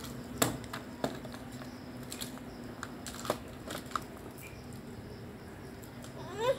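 Scattered light clicks and taps from a toy fishing rod being handled, a few sharp ones spaced out over a steady low hum. A child's voice rises briefly right at the end.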